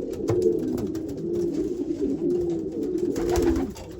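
A loft full of racing-pigeon cock birds cooing continuously, many calls overlapping, as the cocks are worked up over their nest boxes. A short rustling burst comes about three seconds in.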